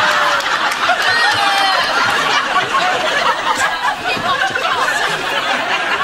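Studio audience laughing, many voices together.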